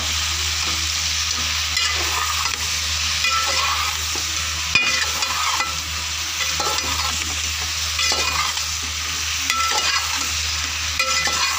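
Chopped mixed vegetables sizzling in oil in a metal pan while a steel spoon stirs and scrapes through them to mix in the freshly added spices. The spoon strokes come about once a second over a steady frying hiss, with a low hum underneath.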